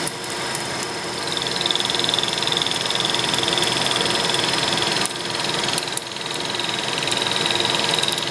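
Milling machine spindle running while an end mill cuts a pocket in a white plastic block: a steady machine hum with a high cutting whine that sets in about a second in. The cutting sound drops off briefly twice, near the middle and a second later.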